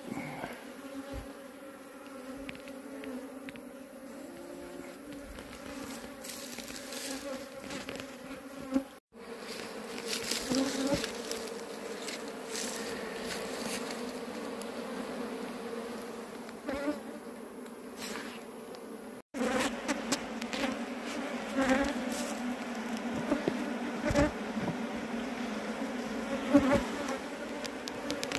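A honeybee colony buzzing steadily around open comb in a hive box, a low, even hum. A few short knocks from the wooden top bars being handled come through in the second half.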